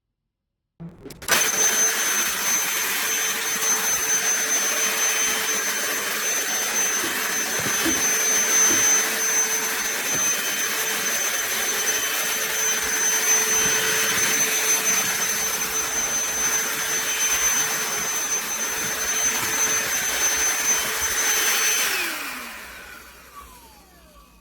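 DEWALT 20V cordless handheld vacuum switched on about a second in and running steadily with a high whine. Near the end it is switched off and its motor spins down, the pitch falling as it fades.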